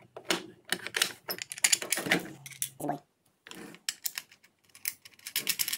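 Hard plastic parts of a router table's parallel fence clicking and knocking together as they are fitted by hand: an irregular run of sharp taps and clicks.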